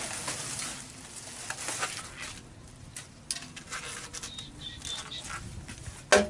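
Packing paper and plastic wrapping crinkling and rustling as a chrome motorcycle exhaust pipe is handled in its cardboard box, with a sharp knock shortly before the end.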